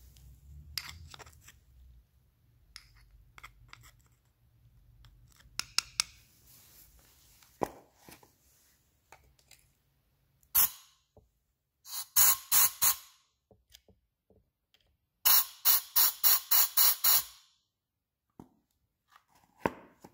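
Short hissing spray bursts: one, then a quick run of four, then a run of seven in about two seconds, with small clicks and knocks of handling between.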